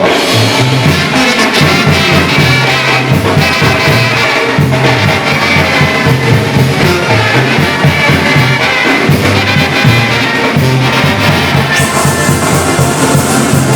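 Sinaloan banda music in an instrumental passage between sung verses: the brass section playing over a moving bass line, with no singing.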